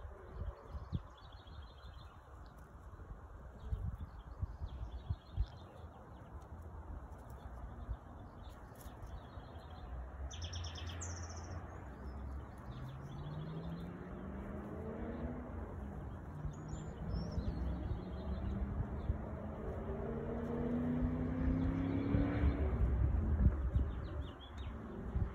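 Small birds chirping in short trills, over a steady low rumble. From about halfway, a distant engine hum slowly rises in pitch and grows louder toward the end.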